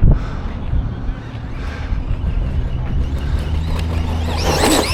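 Arrma Vorteks RC truck's electric motor whining as it revs up and down sharply near the end, over a steady low rumble.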